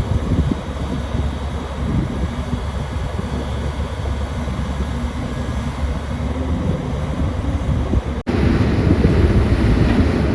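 Caterpillar 320D excavator's diesel engine running steadily under working load, a dense low rumble. About eight seconds in the sound cuts out for an instant and comes back louder.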